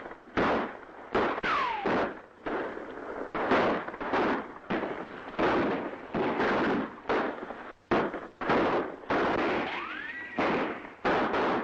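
Gunfight sound effects on an old western film soundtrack: a rapid, irregular string of gunshots, each with an echoing tail. A ricochet whine comes about one and a half seconds in, and another near the end.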